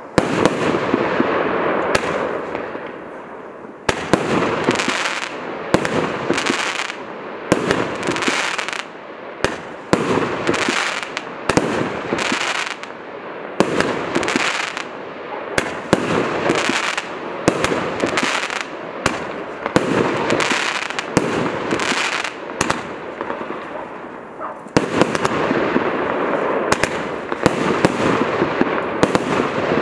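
A 25 mm firework cake firing shot after shot, about one shot a second through the middle: each sharp pop of a launch or burst trails into a short rush of noise from the bursting stars. Near the start and again from about 25 seconds in, the shots come closer together and run into a continuous noisy spell.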